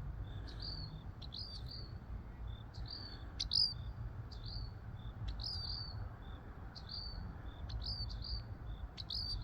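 Small birds chirping over and over, short sharp calls about once or twice a second, calling back and forth.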